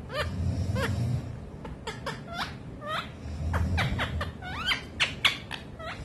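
A green parakeet chirps and squeaks in a rapid series of short calls, each with a quick bend in pitch, coming faster and louder in the second half. The bird is giving courtship chatter.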